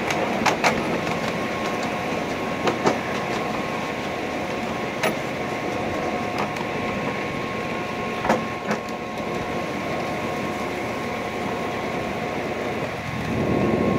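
Small ride-on garden train running along its track: a steady rumble with a faint steady whine and a few sharp clicks now and then.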